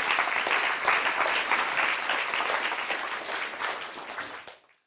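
Audience applauding: many hands clapping together, thinning out gradually and then cutting off abruptly shortly before the end.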